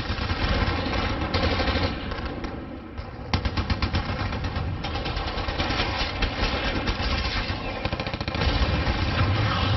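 War sound effect of continuous automatic gunfire: rapid machine-gun bursts mixed with single shots. It eases off briefly a few seconds in, then a sharp shot starts it up again.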